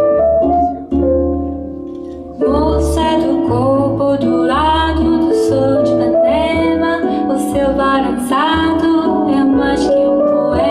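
Recorded bossa nova with piano and a singing voice, played back through semi-order hi-fi loudspeakers. The music softens about a second in and comes back fuller at about two and a half seconds.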